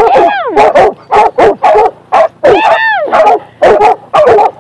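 Catahoula dogs baying at a raccoon cornered in a hole: a rapid, loud run of high, yelping barks, about two or three a second, overlapping so there is hardly a pause.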